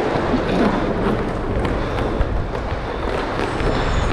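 Steady noise of roller hockey skating: skate wheels rolling over a plastic rink floor and wind on a body-worn camera, with a few faint clicks.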